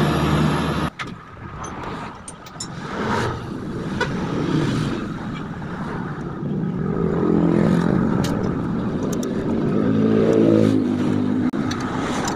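Motor vehicle engines running nearby, swelling and fading, after a steady engine hum cuts off abruptly about a second in. A few small metallic clicks come from nuts being threaded by hand onto the studs of a GY6 scooter engine.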